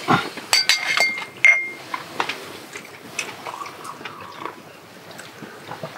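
Drinking cups and a can clinking together in a toast, several quick ringing clinks in the first second and a half, followed by quieter sipping and small handling sounds.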